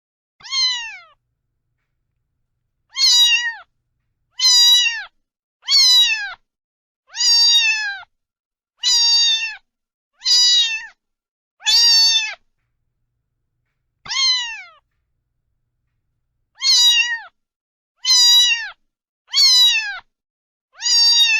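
Domestic cat meowing over and over: about a dozen short meows, each rising and then falling in pitch, with silent gaps between them.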